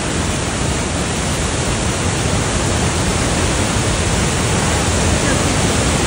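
Waterfall: the steady, even rush of falling water, loud and unbroken.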